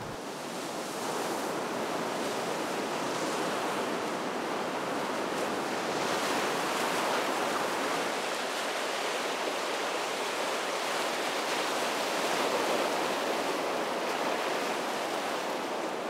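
Ocean surf washing against the shore: a steady rush of breaking waves that swells gently now and then.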